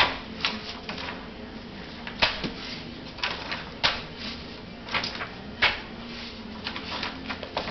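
Glossy pages of a picture book being flipped by a toddler's hand, an irregular run of sharp paper flaps and slaps, about a dozen in all.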